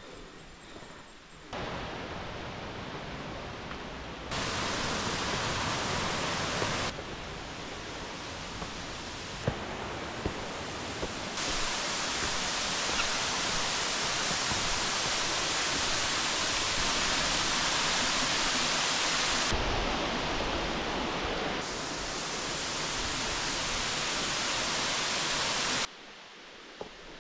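Steady rush of falling water from a waterfall, jumping abruptly in loudness and tone every few seconds.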